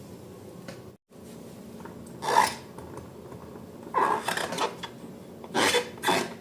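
Slime being squeezed and worked by hand, in short noisy bursts: one about two seconds in, then several close together from about four seconds in.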